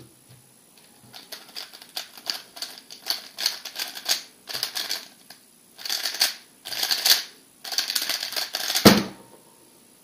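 MoYu RS3 M 2020 3x3 speedcube being turned fast in a speedsolve: rapid plastic clicking and rattling of the layers in quick bursts with short pauses. It ends about nine seconds in with a single thump as the solved cube is set down on the timer mat.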